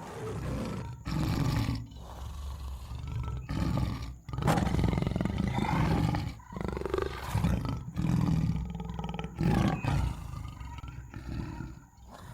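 Tiger roaring repeatedly: a series of low roars, each about a second long, with short breaks between them.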